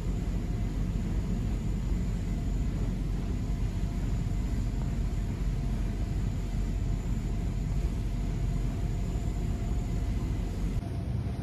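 Steady low rumble of gym background noise with a faint constant hum, unbroken by any distinct knocks or clicks; the sound changes slightly at a cut near the end.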